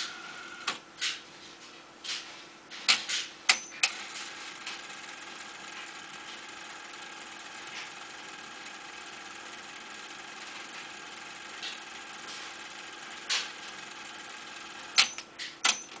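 Clicks and clunks from a Sony hi-fi stack's controls and mechanisms switching over, over a steady hiss. There is a run of sharp clicks in the first four seconds, a single one about 13 seconds in, and a quick cluster of four near the end.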